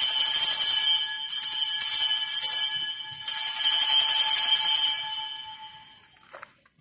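Sanctus bells, a cluster of small altar bells, shaken at the elevation of the consecrated chalice. They ring in three long peals with short breaks about a second and three seconds in, then die away near the end.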